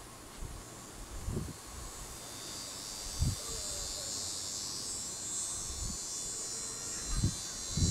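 Insects trilling, a steady high-pitched buzz that grows louder about two seconds in, with a few low thumps on the microphone.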